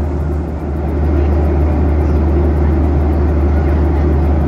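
Boeing 737-800 cabin noise in cruise, heard from a window seat by the wing: a steady low drone of the CFM56 jet engines under the rush of air past the fuselage.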